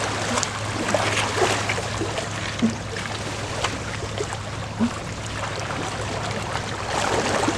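Lake water washing and sloshing at the shore, with a few small splashes and ticks, over a steady low hum.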